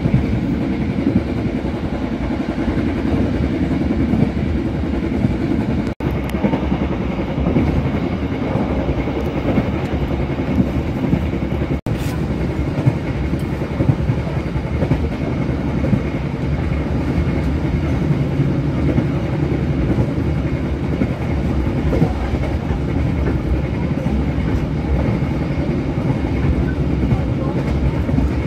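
Passenger train running along the line, heard from inside the carriage: a steady rumble of wheels on the rails with some clickety-clack. The sound cuts out for an instant twice.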